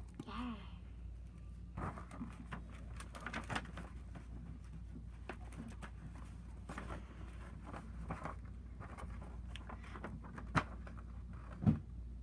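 Faint scattered clicks and rustles of things being handled close to the microphone, over a steady low hum, with a short voiced sound near the end.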